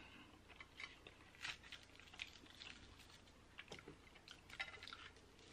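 Faint chewing of a mouthful of chicken pot pie, with a few small scattered clicks of the mouth and food.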